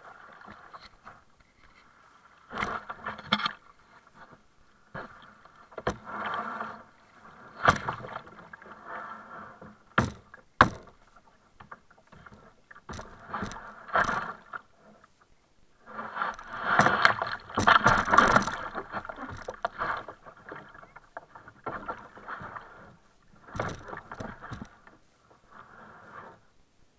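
Water splashing and sloshing around a sit-on-top kayak in shallow water, in irregular bursts from wading and paddle strokes, with a few sharp knocks on the hull.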